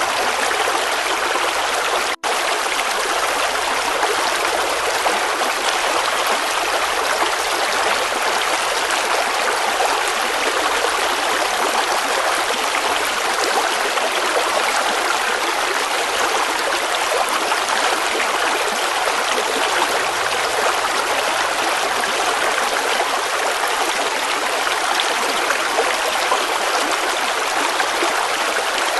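River water flowing steadily, a continuous rushing and trickling, with a momentary cut-out about two seconds in.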